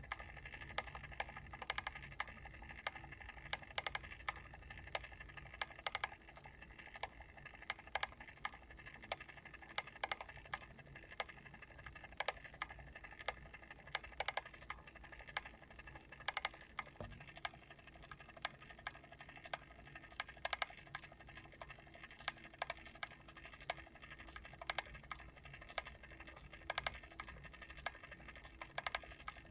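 Mechanical timer switch clicking: rapid, irregular small clicks with louder ones every second or two, over a steady hum.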